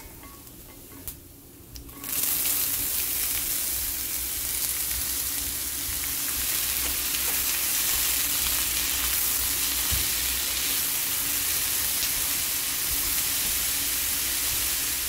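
Diced potatoes going into hot oil in a pan and sizzling steadily. The sizzle starts suddenly about two seconds in, after a quieter start.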